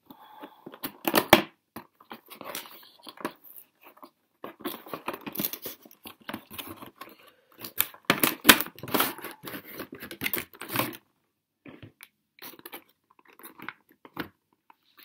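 Cardboard box and clear plastic tray of a Funko vinyl figure being opened by hand: irregular rustling, tearing and crinkling. There are sharp crackles about a second in and from about 8 to 11 seconds in, then only occasional soft handling of the plastic.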